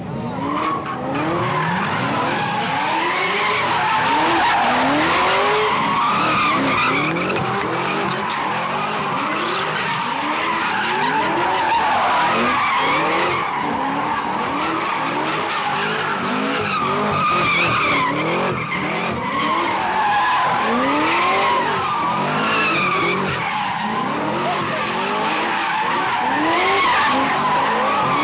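Cars drifting and doing donuts: tyres squealing without a break while the engines rev up and down again and again.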